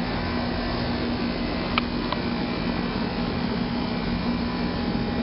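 A 13-year-old central air-conditioner outdoor condensing unit running steadily: a compressor hum under the rush of its condenser fan, with two faint ticks about two seconds in.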